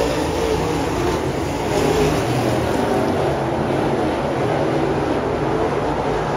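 A pack of dirt late model race cars running laps on a dirt oval, their V8 engines blending into a loud, steady drone.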